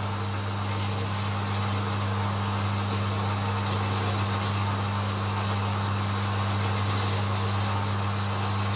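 Horizontal metal-cutting bandsaw running with its coolant pump on, the blade cutting into steel plate: a steady machine hum over an even noise.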